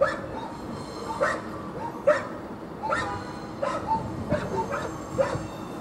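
A dog barking repeatedly, short sharp barks roughly once a second, over a steady background hum.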